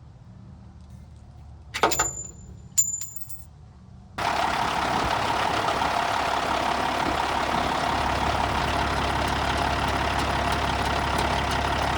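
Two sharp metallic clinks about a second apart, then a loud, steady mechanical running noise with a low hum that starts abruptly about four seconds in.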